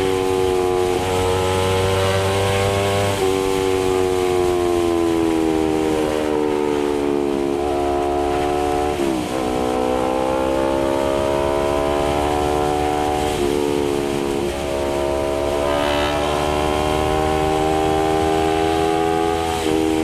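Honda CBR250RR's 250 cc parallel-twin engine running through an R9 GP SS aftermarket exhaust while being ridden. It holds steady revs whose pitch slowly sags and climbs, with a few brief dips, the sharpest about nine seconds in.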